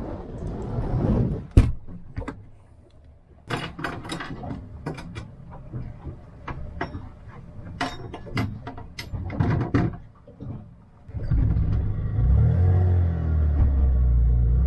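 Wind noise, then a sharp knock as a cabin window is shut, followed by a string of scattered clicks and knocks. About eleven seconds in, a portable generator starts up and settles into steady running.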